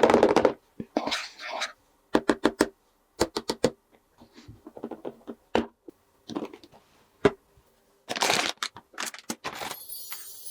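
Small plastic toy pieces being handled: sharp clicks and knocks, some in quick runs of four or five, with brief rustling between them and a short hissy crinkle near the end.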